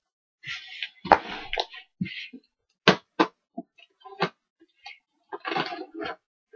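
Hands handling a large cardboard shipping box: irregular rustling and scraping over the cardboard and its plastic packing-slip pouch, with several sharp knocks and clicks.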